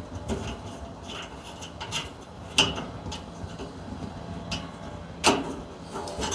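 Scattered small clicks and taps of metal tube fittings and a tool being handled while the pilot tube fittings of a gas water heater are threaded back in, with two sharper clicks about two and a half and five seconds in.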